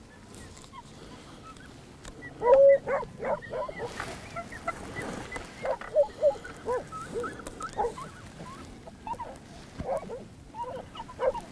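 A run of canine yips and short barks, high-pitched and bending up and down in pitch, starting about two seconds in and coming in uneven clusters.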